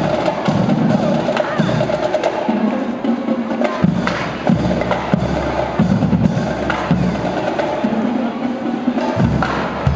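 Marching band playing: a drum line of snare and bass drums with clicking sticks, over a low brass bass line from sousaphones.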